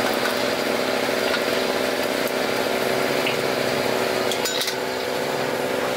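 Chicken nuggets sizzling as they deep-fry in bubbling oil in a wok, over a steady hum. A few quick metal clinks of the ladle against the wok come a little past the middle.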